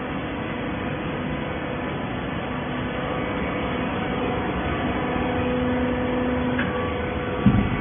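Horizontal hydraulic baler running with a steady mechanical hum. One tone in the hum grows stronger and then cuts off about six and a half seconds in, and a short low thump follows near the end.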